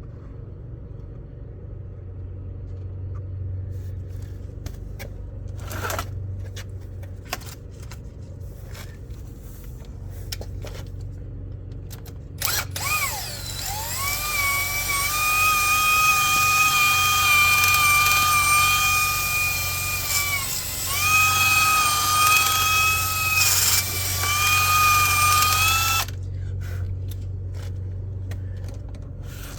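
Power drill spinning up with a high whine, running steadily for about thirteen seconds with one brief dip in speed, then stopping suddenly. Before it, a few scattered knocks and clicks over a steady low hum that lasts throughout.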